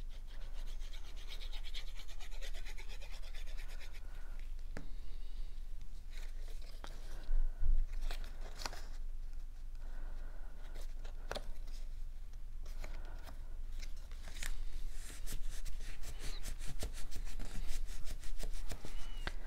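Cardstock paper being handled, rubbed and pressed together by hand: papery scratching and rustling with scattered light taps, and a dull bump about seven seconds in.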